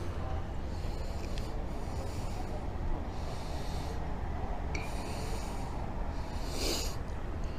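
Breathing and rustling close to a body-worn microphone over a steady low hum, with a few short hissy rushes, the loudest near the end.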